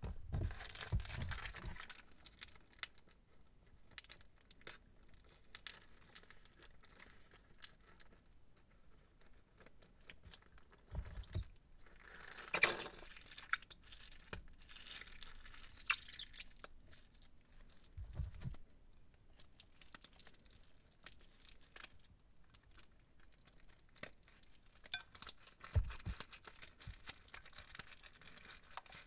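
Plastic piping bags crinkling and rustling as they are handled and squeezed, with a few brief louder crinkles and soft dull bumps.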